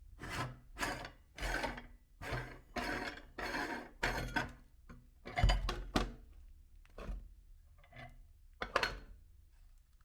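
Meat grinder working through chocolate candy: repeated scraping, grinding strokes about two a second, growing sparser in the second half.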